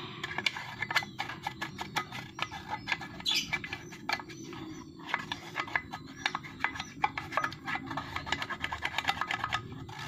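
Old toothbrush scrubbing a wet plastic drinking cup, a fast irregular run of short scratchy bristle strokes, several a second, to clear lime scale and moss from it.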